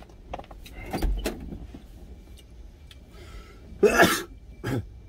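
Handling noise from reaching and rummaging behind the seats of a truck cab: scattered clicks and knocks, a dull thump about a second in, and a louder short clatter about four seconds in.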